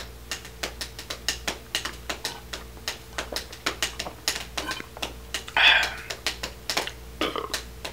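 Crinkling of a plastic snack bag and crunching of snacks as someone eats from it: irregular crisp clicks and crackles, several a second, with a louder crackle about two-thirds of the way through.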